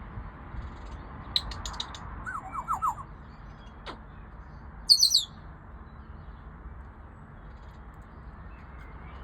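Birds calling: a few short clicks, a quick run of four chirps about two and a half seconds in, and one loud high call about five seconds in. Steady road traffic runs underneath.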